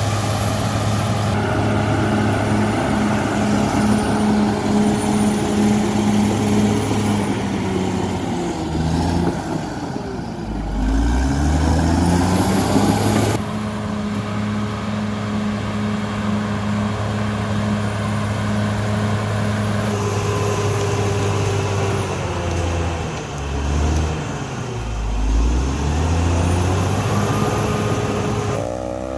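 Cat D6R XL bulldozer's diesel engine running hard, its pitch sagging and then picking back up twice, as under changing load. Faint short high squeals come through now and then.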